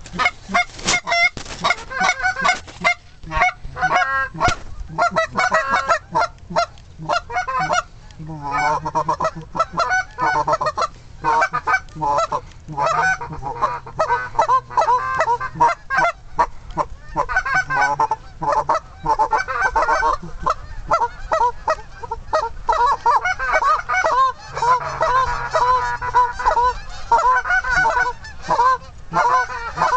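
Goose honking: a fast, almost unbroken run of loud honks and clucks, the kind of calling used to bring a flock of geese down.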